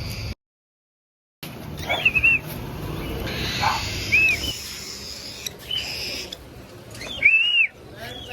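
Cockatiel giving a few short, arching chirp calls, the loudest near the end, over a steady background hiss.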